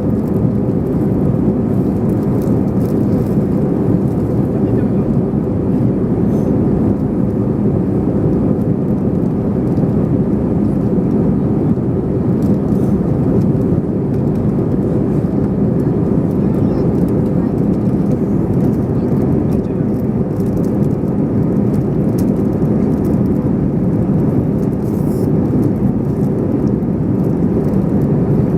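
Steady cabin noise of an Airbus A321ceo jetliner in flight: a constant engine and airflow rush with a low steady hum under it.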